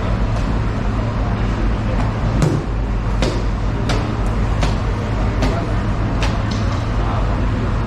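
Large knife chopping into a bluefin tuna: a series of sharp knocks, roughly one every three quarters of a second, starting a couple of seconds in, over a steady low rumble.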